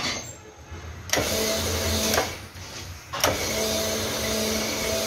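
Cylinder honing machine running with its hone spinning in a tractor engine's cylinder bore, polishing the sleeve. It makes a steady motor hum with a grinding hiss, starts about a second in, stops briefly near the middle, then starts again and runs on.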